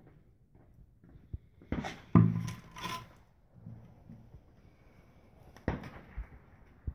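Handling noises: light knocks and rubbing, clustered about two seconds in, with another sharp knock near the end.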